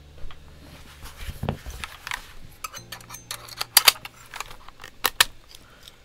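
Irregular sharp plastic clicks and small rattles as a keyboard macropad, its keycaps and a pair of tweezers are handled, with two louder clicks about two-thirds of the way through.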